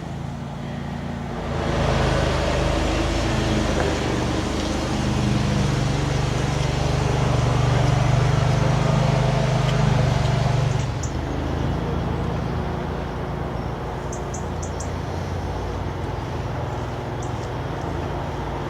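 Steady motor-vehicle noise, an engine hum over a rushing sound. It swells for the first half and then eases to a lower steady background, with a few faint, brief high chirps in the second half.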